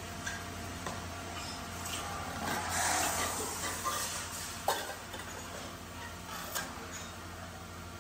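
Belt-driven lathe running with a steady hum while a hand-held tool scrapes against a spinning aluminium bucket, the scraping swelling for a moment about three seconds in; a couple of sharp metallic clicks follow.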